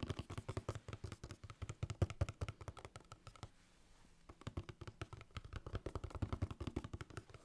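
Rapid, close-miked tapping and clicking in two runs of a few seconds each, with a short pause between.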